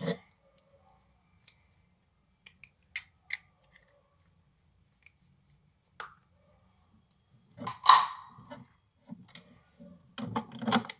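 Scattered small clicks and taps of makeup items being handled: a powder compact and brushes. A louder knock-and-rustle comes about eight seconds in, and a cluster of handling noises follows near the end.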